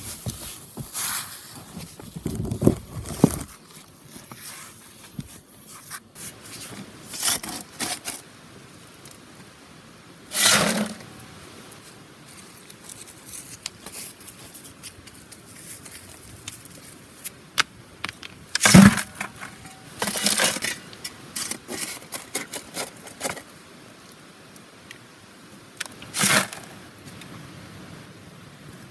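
Rocks and gravel scraping and clattering as stones are dug out and shifted by hand. The bursts come irregularly, a few seconds apart, with a quieter hiss in between.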